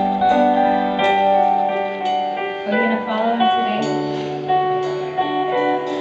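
Music: an acoustic guitar strummed, with a new chord struck about once a second over sustained notes.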